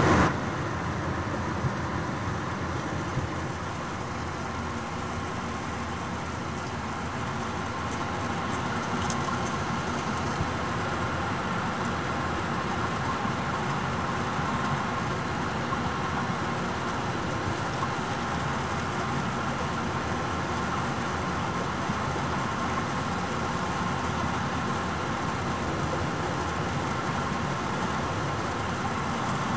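Steady cabin noise of a jet airliner in flight, the even rush of the engines and airflow heard from a window seat.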